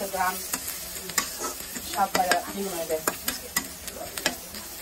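Stainless-steel spatula stirring and scraping onions and chillies frying in oil in a metal karahi: repeated sharp clacks of metal on the pan over a steady sizzle.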